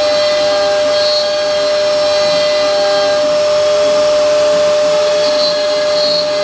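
CNC router spindle running steadily with a constant whine while milling, with short higher-pitched squeals now and then as the cutter works the material.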